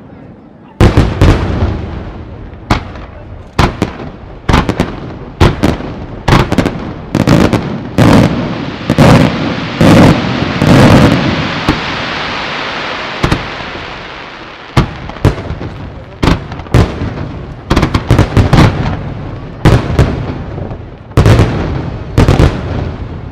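Aerial firework shells bursting in rapid succession, sharp bangs coming close together in clusters. Around the middle the bangs give way for a few seconds to a dense steady crackling fizz from glittering stars, then the bangs start again.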